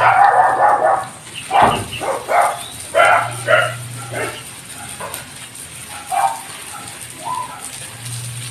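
A dog barking in a run of short barks and yips, loudest in the first few seconds and sparser after, over a low hum that comes and goes.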